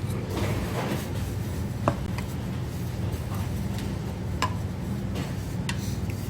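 A few light clinks of tableware over a steady low hum.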